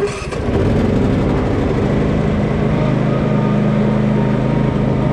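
Husqvarna 450 Rancher two-stroke chainsaw engine running at a steady speed, starting abruptly and holding an even pitch.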